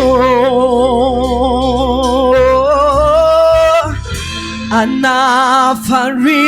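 Gospel worship song: a singer holds long notes with vibrato, one rising slightly before breaking off just before halfway, then another begins, over steady low instrumental backing.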